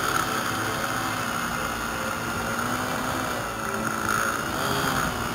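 Electric motor and propeller of a small foam RC plane whining steadily as it flies, heard up close from aboard the plane, with a slight rise and fall in pitch as the throttle changes, over rushing wind.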